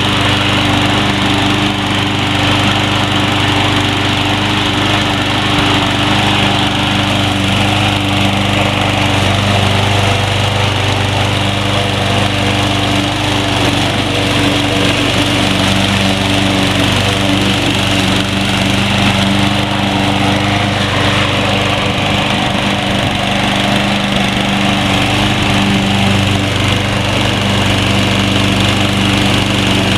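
Troy-Bilt TB230 21-inch self-propelled walk-behind mower's gasoline engine running steadily while mowing thick grass.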